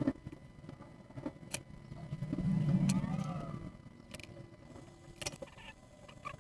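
Scattered light clicks and taps of small parts being handled at a workbench. In the middle, a low rumble swells and fades over about two seconds.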